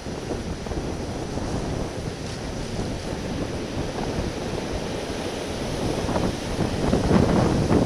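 Wind buffeting the camera's small microphone over the wash of sea swell on rocks, a steady rumble that gusts louder near the end.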